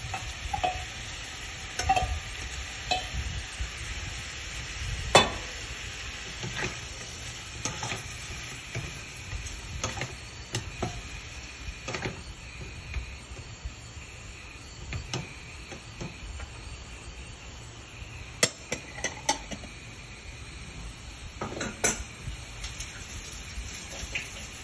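Chopped meat and onion sizzling in a non-stick frying pan over a gas flame, stirred with a wooden spatula. Frequent sharp knocks and scrapes come from the spatula against the pan, the loudest about five seconds in.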